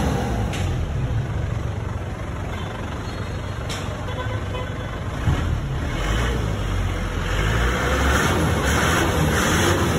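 A motor vehicle running, a steady low rumble with road or traffic noise. It eases a little in the middle and grows louder over the last few seconds, with one short knock about five seconds in.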